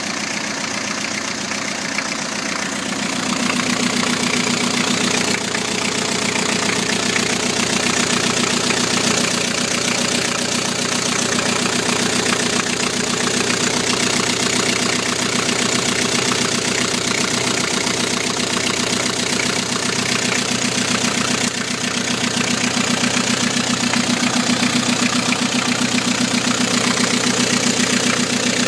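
Chrysler Voyager's 2.5-litre turbodiesel engine idling steadily.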